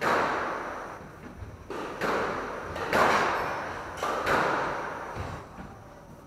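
Squash ball being struck and hitting the court walls: a string of sharp smacks about a second apart, each ringing out in a long echo. The hits stop about four and a half seconds in.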